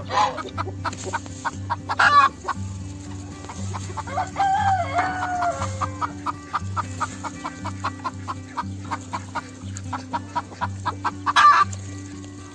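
Farm fowl clucking in quick short calls, with one long crowing call that falls in pitch about four seconds in, over background music with a steady repeating bass.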